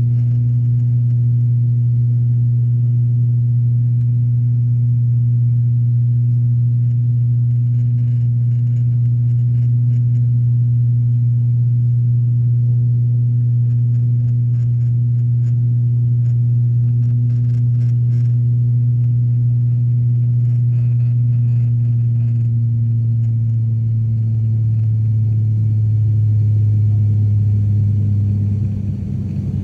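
Airliner engine drone heard inside the cabin in flight: a loud, steady low hum with a fainter higher tone above it. Near the end the hum drops slightly in pitch.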